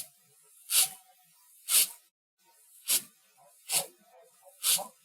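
Praying mantis defensive hissing: short, sharp hisses about once a second, five in a row.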